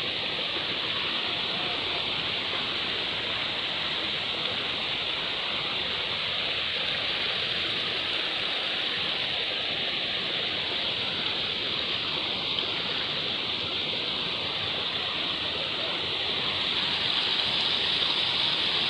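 Steady rushing of running water, a stream or small cascade, swelling a little louder near the end.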